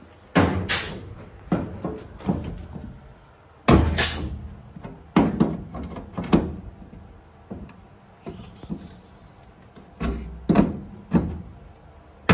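Hand-held sheet-metal hole punch snapping quarter-inch plug-weld holes through steel panel, a series of sharp metallic clacks, several in close pairs, with softer clunks between as it is moved along the edge.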